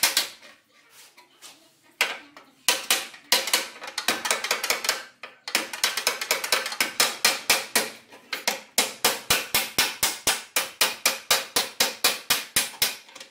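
Hand hammer striking the steel front frame rail (longeron) of a Volvo S60 to straighten the bent rail. It is a rapid series of sharp metallic blows, about four or five a second, with a quieter stretch in the first two seconds and a few short pauses.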